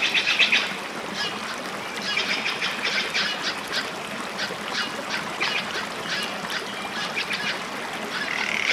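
Rapid, high chirping animal calls repeating many times a second, with a steady high tone coming in near the end.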